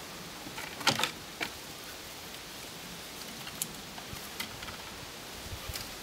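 Huskies' claws and paws clicking and knocking against wooden fence boards as they jump and scrabble up it, with the loudest cluster of knocks about a second in. Under it runs a steady outdoor hiss of rustling leaves.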